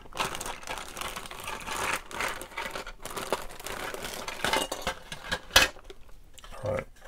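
Clear plastic parts bag crinkling and rustling as plastic model-kit parts are handled and pulled out, with one sharp click about five and a half seconds in.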